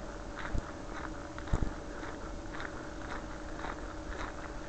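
Footsteps crunching along a towpath at a steady walking pace, about three a second, with two louder thumps about half a second and a second and a half in, over a faint steady hum.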